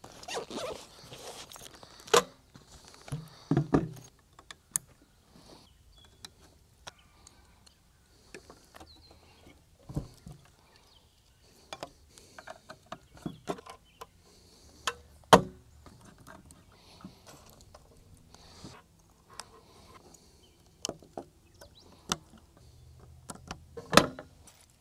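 Hands handling portable radio gear on a wooden picnic table: scattered clicks, knocks and rustling as cables and connectors are plugged in and the units are set down and moved. The sharpest knock comes about halfway through.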